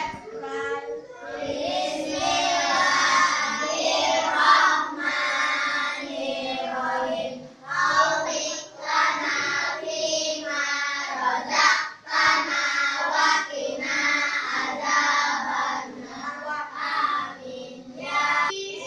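A class of young schoolchildren singing a song together.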